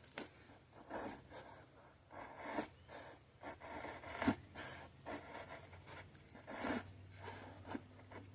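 Opinel No. 8 stainless-steel pocket-knife blade shaving pine wood to make a feather stick: a series of quiet, short scraping strokes, roughly one a second.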